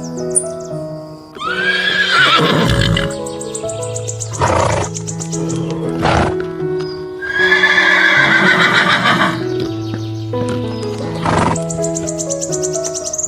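Horse neighing twice, each a long quavering whinny about two seconds long, with shorter snorts between them, over background music.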